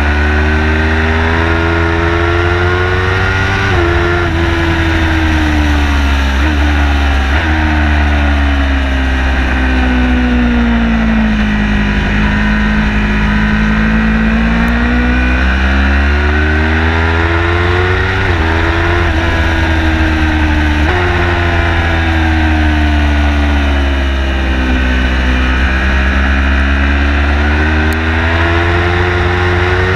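Car engine on a fast track lap: it revs up under acceleration with sudden drops in pitch at gear changes, and falls away slowly while slowing for corners, over a heavy, constant low rumble.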